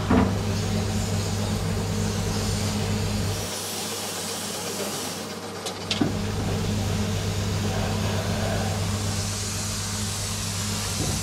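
Steady motor hum with a hiss of air, typical of an air compressor feeding a spray-paint gun. The low hum drops away from about three and a half seconds in and comes back with a click at about six seconds.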